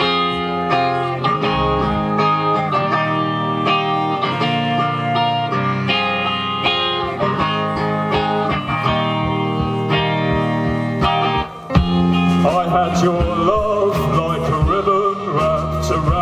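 Live band music: the instrumental intro of a song, with sustained chords starting at once. There is a short dip just before twelve seconds, then a wavering melody line comes in over the chords.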